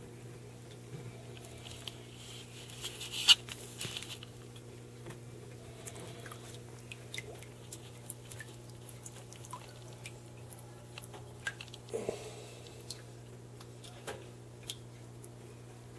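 Scattered clicks, scrapes and knocks as a sulcata tortoise is picked up and handled, over a steady low hum. One sharp click about three seconds in is the loudest, and a short cluster of knocks comes near the twelve-second mark.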